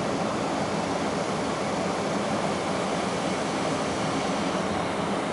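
Steady rushing noise with a low hum from a ship's machinery and ventilation, unchanging throughout.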